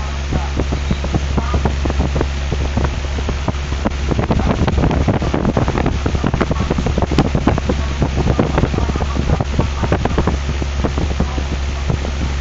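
An electric fan's airflow buffeting the microphone: irregular rumbling gusts over a steady low hum. The buffeting grows heavier from about four seconds in.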